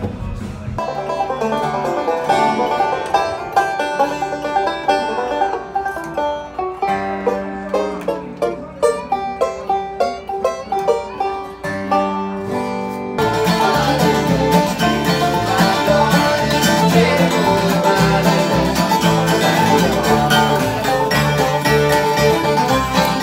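Bluegrass string band jamming acoustically: banjo picking with acoustic guitar, dobro, upright bass and fiddle. The first half is sparser picking; a little past halfway it turns abruptly fuller and louder.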